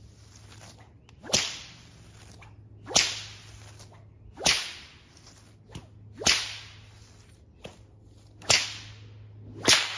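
An 11½-foot hand-tanned buckskin Florida cow whip cracking six times, roughly every one and a half seconds. Each is a sharp crack with a short fading tail, with a few faint clicks between the cracks.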